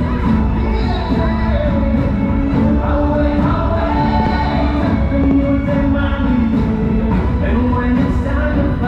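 Show soundtrack music with singing voices, played loud.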